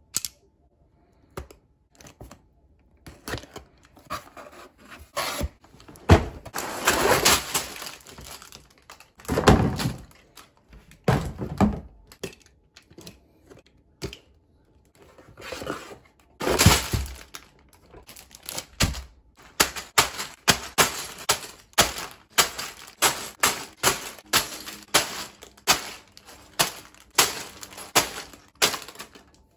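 A large Lego set's cardboard box being opened with a box cutter and handled, with rustling and knocks, then sealed plastic bags of Lego bricks dropped one after another, about two crinkly thuds a second over the last ten seconds.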